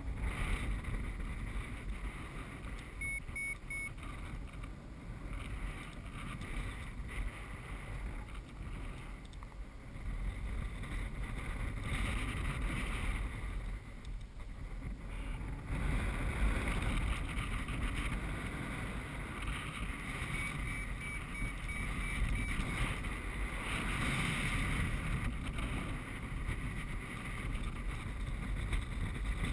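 Airflow rushing over the microphone of a paraglider in flight, a steady rush with a low buffeting rumble. Faint short high beeps come briefly a few seconds in and again past the middle.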